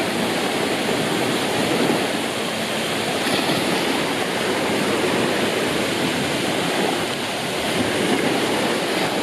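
Steady rushing of water in a water park: a continuous wash of pool waves and flowing water, with no let-up.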